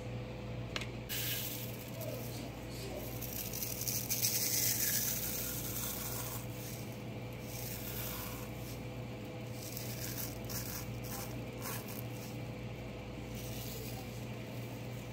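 Oven-dried parsley crackling and rustling as a hand crumbles it over a metal baking sheet into a plastic bowl; the leaves are brittle and fully dried, so they break up easily. The crackle is busiest between about one and six seconds in.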